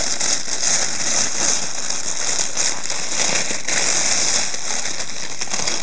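Thin plastic bag crinkling and rustling continuously as it is handled and pulled off a camera body, a dense crackle of small irregular ticks.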